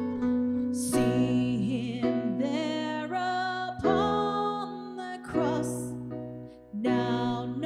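A woman sings a verse of a worship song over electric piano and acoustic guitar; the voice comes in about a second in.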